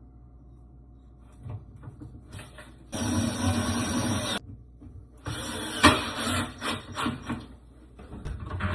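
Two bursts of mechanical whirring from a small motor, the first about a second and a half long and the second about two seconds, with a sharp click during the second burst and a few light knocks around them.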